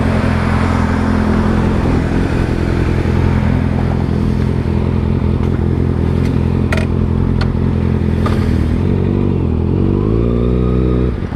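Motorcycle engine running steadily, with a few sharp clicks in the middle. Near the end it revs up, rising in pitch, then drops off sharply for a moment.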